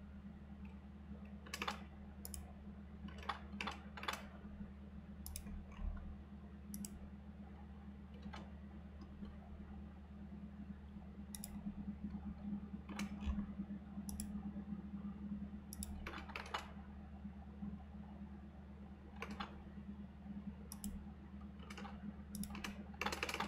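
Computer keyboard typing in sparse, irregular keystrokes and small clusters of clicks, over a steady low hum.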